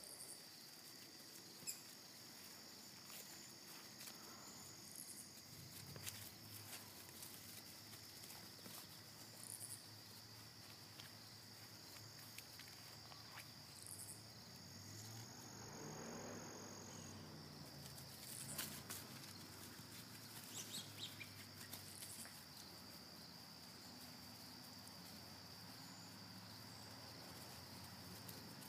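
Faint, steady high-pitched insect chirring in the background. A few faint sharp clicks and a low rumble that swells and fades about halfway through.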